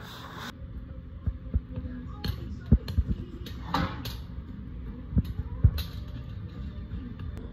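A metal spoon stirring and scraping through shredded red cabbage and sausage in a pot, knocking against the pot several times at irregular moments. A steady low hum runs underneath.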